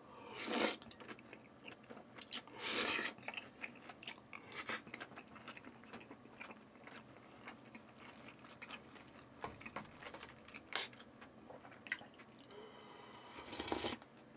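Close-miked eating of raw salmon slices and onion: two loud slurps about half a second and three seconds in, then wet chewing with many small clicks. Near the end comes a longer slurping sip of soup from a paper noodle cup.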